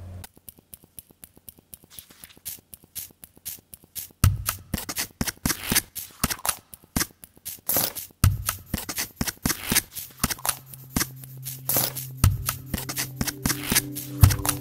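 Outro music built from quick, crisp clicks and ticks that grow denser, with a low thud about every four seconds and a held bass note coming in about ten seconds in.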